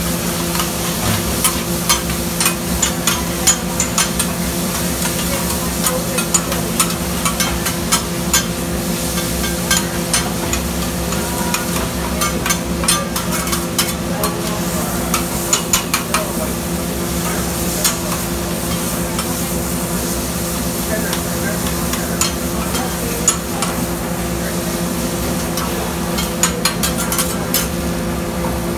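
Chopped steak and onions sizzling on a flat-top griddle while two metal spatulas chop, scrape and turn the cheesesteak meat, with frequent irregular clanks of steel on the steel plate. A steady low hum runs underneath.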